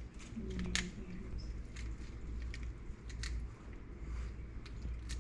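Steamed blue crab being picked apart by hand: scattered clicks and small cracks of the shell snapping and breaking, with soft wet squishing.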